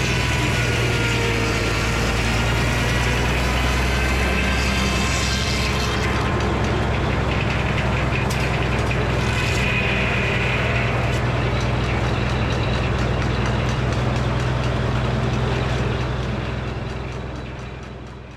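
Frick sawmill running: a steady engine drone under the higher whine of its circular saw blade, fading away near the end.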